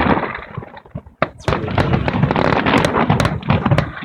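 Fireworks going off: a dense run of rapid crackling pops and bangs, dropping to a brief lull about a second in, then crackling thickly again.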